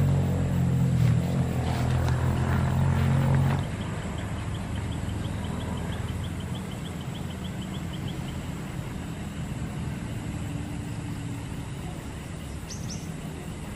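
A motor engine running with a steady low hum, loud for the first three and a half seconds, then dropping suddenly and carrying on quieter. A fast, high ticking series of about six ticks a second runs for a few seconds in the middle.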